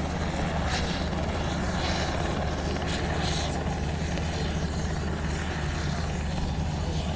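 Helicopter running steadily: a continuous low drone of rotor and engine that holds level throughout.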